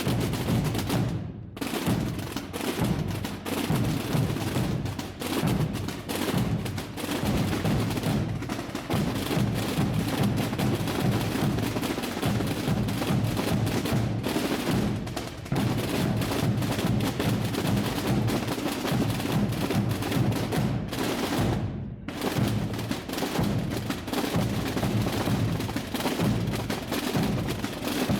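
Massed tamborada drums and bass drums beating together in a dense, continuous din of overlapping strokes, the deep booms strongest, thinning briefly about a second in and again near twenty-two seconds.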